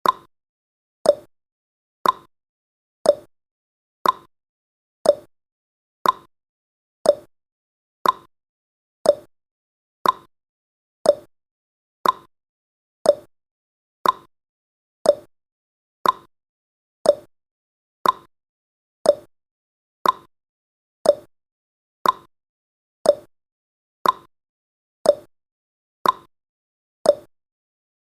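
Clock-style ticking sound effect of a countdown timer: one short, sharp tick every second, alternating higher and lower in pitch like a tick-tock.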